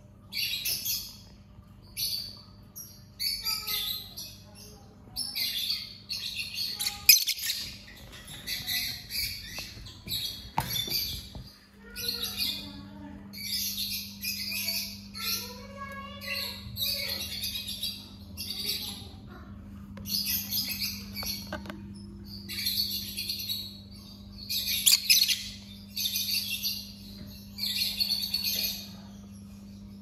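Rosy-faced lovebird chirping shrilly in short bursts, roughly one burst a second, with a sharp click about seven seconds in.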